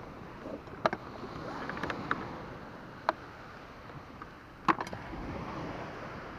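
Half a dozen sharp clicks and knocks from a sailing kayak's rigging as the sheet line and its small metal hook are handled, over a steady background hiss of wind and sea.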